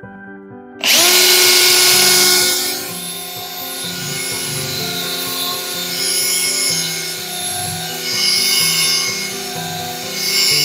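Power drill fitted with a polishing pad starting about a second in and running steadily, loudest for its first couple of seconds, then a little lower. Background music plays underneath.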